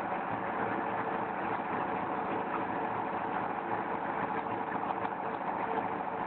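Clay brick-moulding machine running steadily, a continuous mechanical noise with a regular low pulse and no change in speed.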